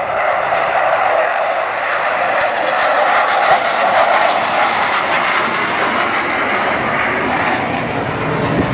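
Avro Vulcan XH558 flying past, its four Rolls-Royce Olympus turbojets making loud, steady jet noise, with brief crackles about three seconds in.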